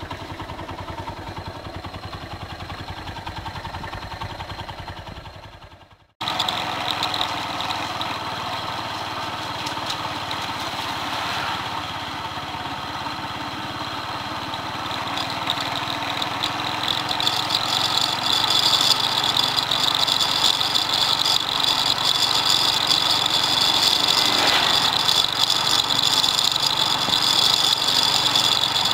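Motorcycle engine running steadily, heard from the rider's seat. The sound breaks off briefly about six seconds in, then the bike is ridden along the road, and the engine and road noise get louder in the second half.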